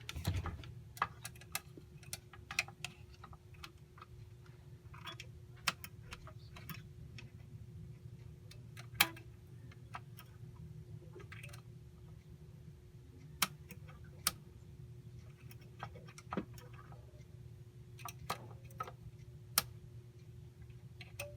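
Irregular light clicks and taps of multimeter probes and test leads being handled at a charger's output terminals, over a steady low electrical hum.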